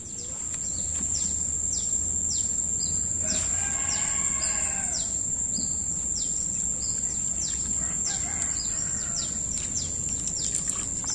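A rooster crows once, about three and a half seconds in, over a steady high whine and a run of quick falling chirps, about two a second.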